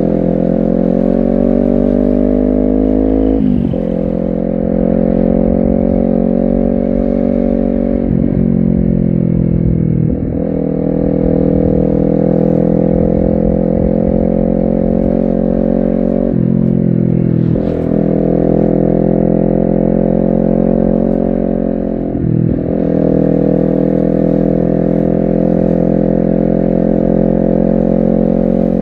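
Honda CBR250RR parallel-twin engine under way, its note climbing early on and then holding steady. It is broken by about five brief dips where the engine note drops and picks up again.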